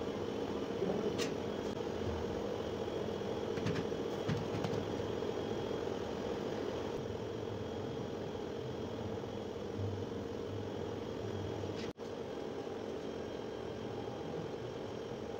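A steady background hum and hiss with a few faint taps in the first few seconds; the sound cuts out for an instant near the end.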